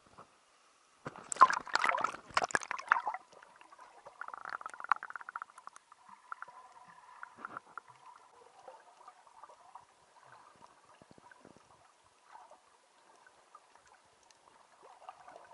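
A snorkeller plunging into the sea: a loud rush of splashing and bubbles starting about a second in and lasting about two seconds. After that comes faint bubbling and crackling, heard muffled underwater.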